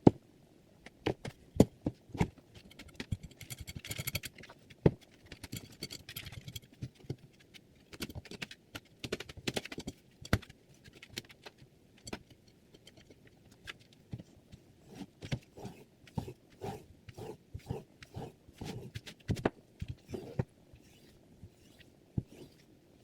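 A chef's knife blade making irregular short scrapes and sharp clicks, a few longer rasping strokes in the first seconds, then a dense run of taps and scrapes.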